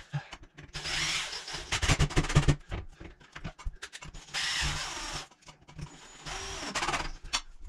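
Cordless drill running in several short bursts of a second or two each, drilling or driving screws into the tiled shower wall to mount a grab bar.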